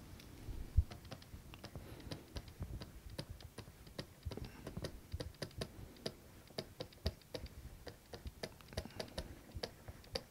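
Faint, irregular clicks and taps, several a second, of a stylus writing on a pen tablet.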